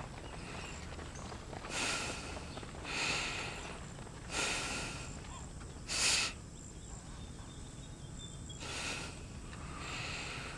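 Horses snorting and blowing, six short noisy breaths a second or two apart, the loudest about six seconds in, over a low steady outdoor background.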